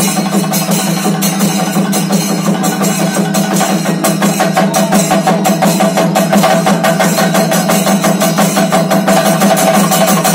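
Chenda drums played in a fast, continuous double thayambaka rhythm, with ilathalam hand cymbals keeping time over the drumming.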